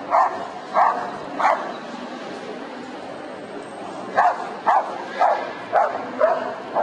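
A dog barking repeatedly, about two barks a second: three barks, a pause of a little over two seconds, then a run of about six more.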